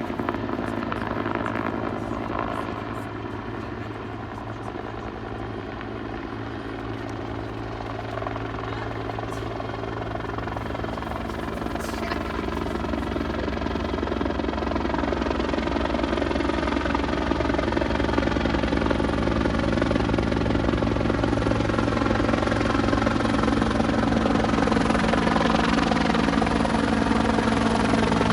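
Helicopter's rotor and engine running steadily, growing gradually louder through the second half as it comes back closer.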